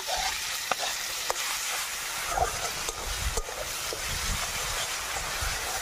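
Onions, ginger-garlic paste and freshly added grated tomato sizzling in oil in a metal kadai, with a spatula stirring and scraping against the pan and giving occasional short clicks.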